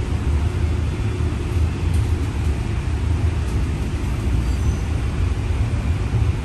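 Steady low rumble of a CityLYNX Gold Line streetcar in motion, heard inside the passenger cabin as it rolls along its rails.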